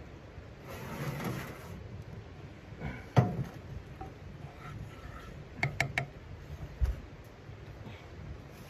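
A steel frying pan and a metal kettle being shifted around on a wood-stove top: a scrape about a second in, a sharp metal clank about three seconds in, then a few quick knocks of a wooden spatula against the pan and a low thump.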